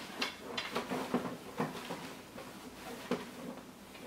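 Parts of a Graco Pack 'n Play Nearby Napper being handled as a pole is worked into its socket: irregular light clicks and knocks, about half a dozen, with fabric rustling.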